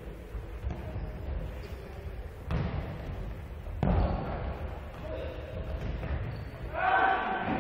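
A futsal ball struck hard twice, about a second apart, in a large sports hall, over a low murmur of voices. Near the end a player shouts.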